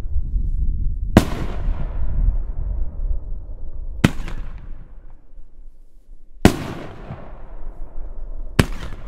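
Shogun Rings of Saturn 500-gram finale rack firing ring shells: four sharp bangs two to three seconds apart as shells lift and burst overhead. Two of the bangs are followed by a long rolling echo.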